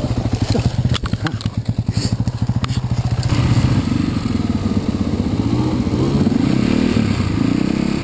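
Dirt bike engines running. At first one engine pulses steadily with a few sharp clatters. About three seconds in the sound changes to engines revving up and down as bikes ride through a shallow river crossing.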